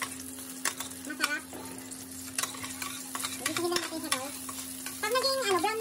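Chopped garlic sizzling in hot cooking oil in a stainless steel frying pan, stirred with a metal spoon that scrapes and clicks against the pan.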